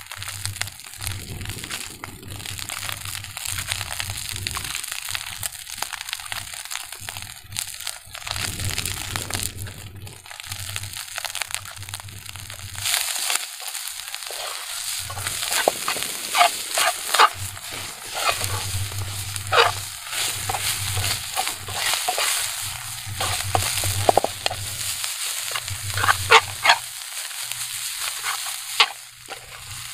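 Fried rice with greens sizzling in a frying pan as it is stirred, with frequent sharp scrapes and knocks against the pan, more of them in the second half.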